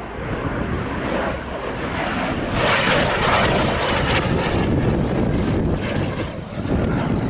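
Display aircraft's engine sound as it flies past overhead, swelling to its loudest about three seconds in and staying loud.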